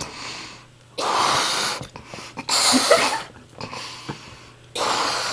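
A person blowing up a rubber balloon: three long, forceful puffs of breath blown into it, with short pauses between them to draw breath.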